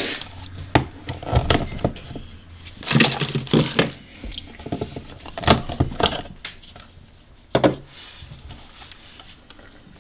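Hands handling a plastic dual battery charger and camcorder batteries: irregular plastic clicks, knocks and rubbing, with a few sharp clicks and a couple of busier clusters of rustling.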